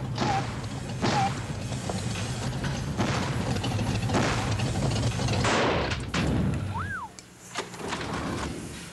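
Deep thumps and booms over a heavy low rumble, with repeated crashing strikes. The rumble drops away about seven seconds in, where a short whistle rises and falls.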